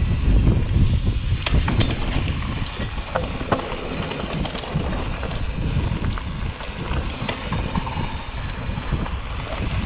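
Mountain bike riding a dirt trail: wind buffeting the action camera's microphone over a steady rumble of tyres on dirt and gravel. A few sharp clicks and knocks come through, mostly in the first few seconds.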